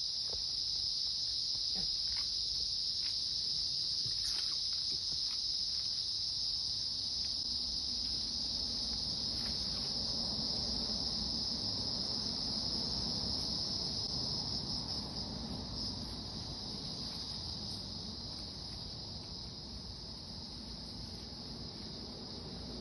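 Steady, high-pitched insect chorus of the forest, with a few faint clicks in the first half and a slight fall in loudness over the second half.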